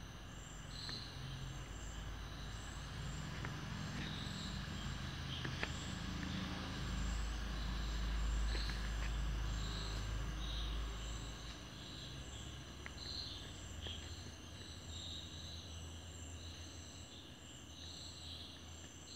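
Faint background ambience: short high insect chirps about once a second over a low rumble, with a few small clicks.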